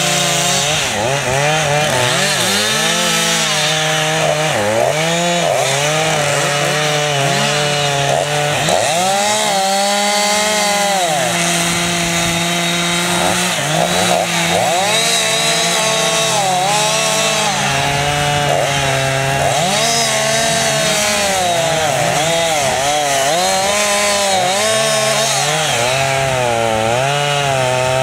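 Chainsaw engine running hard for the whole stretch. Its pitch repeatedly sags and climbs back, as it does when the chain is loaded in a cut and then freed, with a steadier stretch about halfway through.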